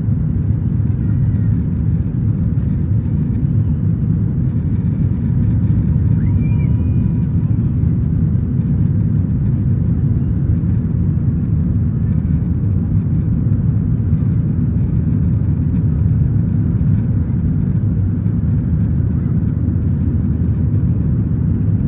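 Steady low roar of a Boeing 737's engines and the rushing air heard inside the passenger cabin as the airliner climbs after takeoff.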